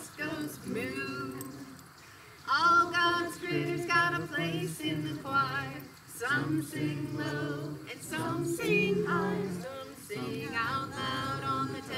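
Unaccompanied singing of a hymn, with women's voices prominent, sung in phrases of held notes with short breaks between them.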